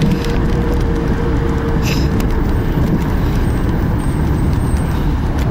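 Steady road noise of a moving car heard from inside the cabin: engine and tyre noise, with a faint steady hum that fades out about halfway through.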